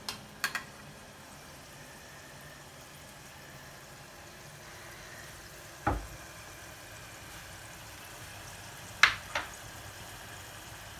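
Food sizzling steadily in a hot pan, with a few sharp utensil clicks and one deeper knock about halfway through.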